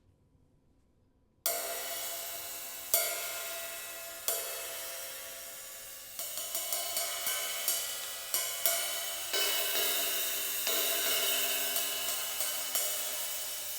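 An 18-inch early-1960s A Zildjian sizzle ride with factory rivets, its 2-inch crack cut out, struck about a second and a half in and left to ring with a long shimmering wash. It is struck a few more times, each about a second and a half apart, then played in a quicker ride pattern of two or three strokes a second from about six seconds in.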